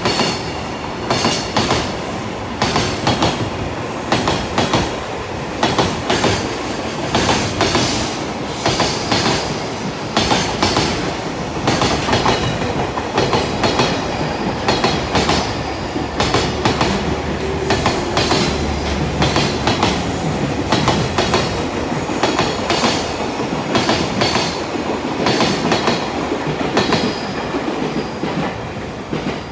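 Container freight wagons running through at speed, their wheels clattering rhythmically over the rail joints. The clatter thins out and fades near the end as the tail of the train passes.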